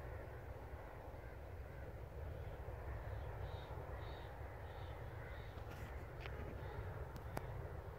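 A bird calling a run of short, evenly spaced notes, about two a second, for a few seconds in the middle, over a steady low rumble of wind on the microphone. A few sharp clicks come near the end.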